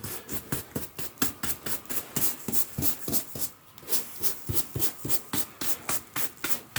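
A hand brush sweeping sand across a carpet in quick, even strokes, about four a second, pushing stray sand back into place.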